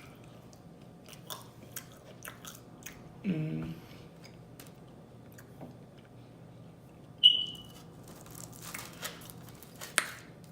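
Close-up chewing and biting of pizza, with scattered wet mouth clicks. A short low hum-like vocal sound comes a little over three seconds in, and a sharp click with a brief ring, the loudest sound, about seven seconds in.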